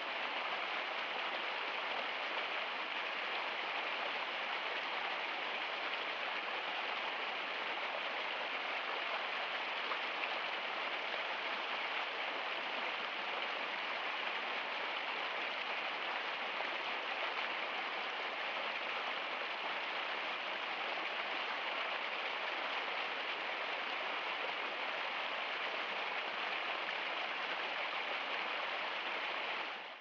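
Small stream splashing and rushing over rocks in a little cascade, a steady even hiss that cuts off at the very end.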